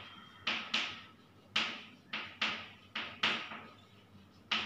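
Chalk writing on a chalkboard: about eight sharp taps and short strokes at an uneven pace as a line of Gujarati script goes up on the board.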